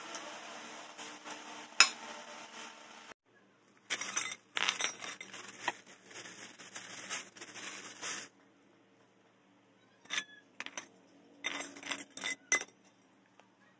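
Scattered clinks and knocks of small hard objects, the loudest a sharp clink about two seconds in, with short stretches of near silence between the clusters.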